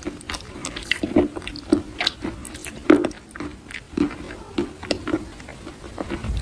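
Close-miked biting and chewing of a soft, crunchy food, with irregular short crunches and crackles several times a second.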